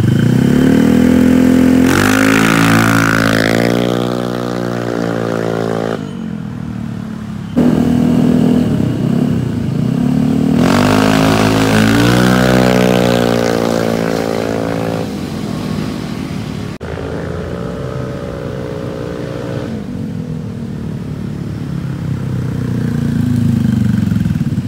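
2019 Honda Vario 125 scooter's single-cylinder engine breathing through a CLD C1 aftermarket exhaust, revved hard twice with the pitch climbing. Between the runs the sound drops away, and it swells again near the end.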